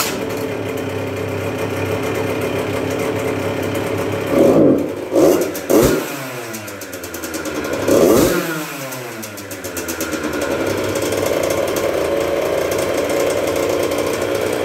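1996 Yamaha YZ80's freshly rebuilt 80cc two-stroke engine running, not yet broken in. It runs steadily, gets three quick throttle blips about four to six seconds in and one more around eight seconds, then settles back to a steady run.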